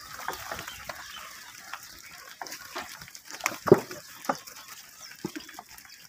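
A herd of Makhi Cheena goats moving about on a dirt yard: irregular knocks and scuffs, the sharpest about three and a half seconds in.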